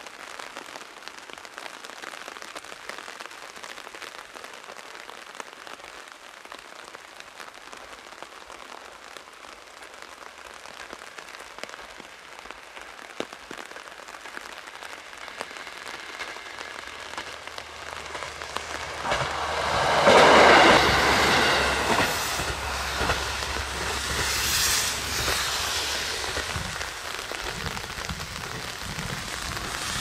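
Steady rain, then a diesel railcar approaching, its engine and wheels growing louder until it passes close by about two-thirds of the way in. The train sound then stays behind the rain as it runs away along the rails.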